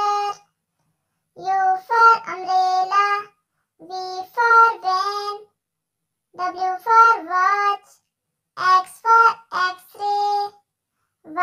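A child's high voice singing four short alphabet phrases in the pattern "letter for word", such as "W for watch" and "X for x-ray", each held on steady notes, with a brief silence between phrases.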